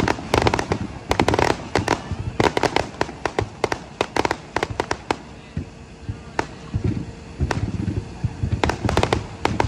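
Fireworks going off in a fast run of sharp cracks and pops. The cracks come thick at first, thin out in the middle and pick up again near the end.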